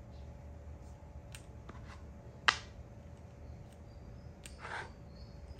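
A makruk (Thai chess) piece set down on the board with one sharp click about halfway through, with a few fainter ticks of pieces being handled around it over a faint steady hum.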